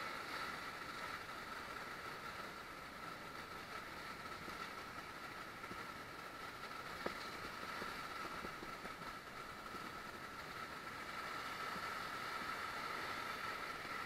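Rushing whitewater of river rapids around an inflatable raft, a steady noise with one faint click about seven seconds in.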